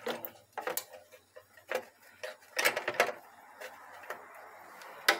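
Irregular light clicks and taps of hands handling a 6T40 transmission solenoid body and its small plastic filter parts on a metal tray, with a quick run of clicks about two and a half seconds in.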